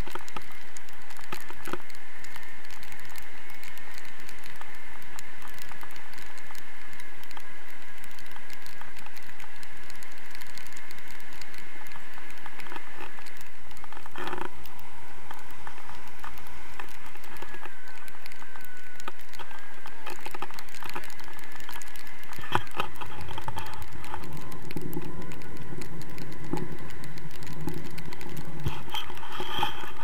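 Wind rushing and crackling over an action camera's microphone in a tandem paraglider flight, steady and loud throughout. A faint wavering whistle runs under it for about the first two-thirds.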